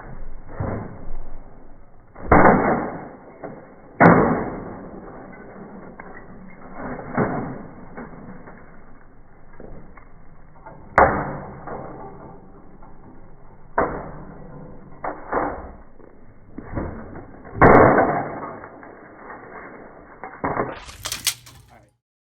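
A series of loud, irregular crashing and breaking impacts, about a dozen over the stretch, as of things being smashed.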